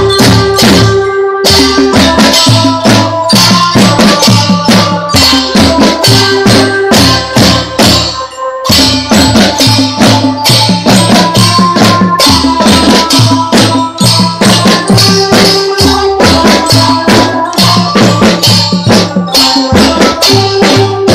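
Children's drum band playing: snare drums and cymbals beating a fast, steady marching rhythm, with a repeating melody and bass line over the drums.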